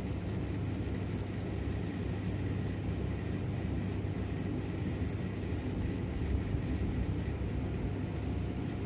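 Steady low rumbling background noise with a faint, thin high tone running over it.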